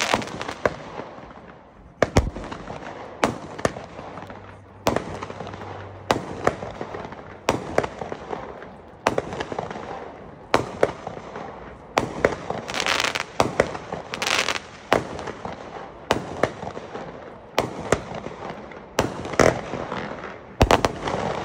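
A 25-shot consumer firework cake firing: a sharp bang about every three-quarters of a second, each followed by a short fading tail.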